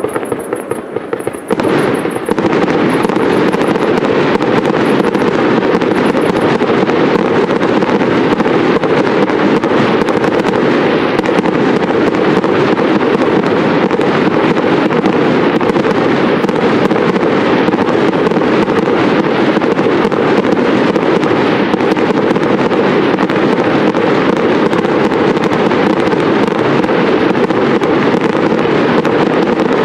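Fireworks display: after a brief lull, about two seconds in it builds into a dense, unbroken barrage of crackling and rapid bangs that keeps going.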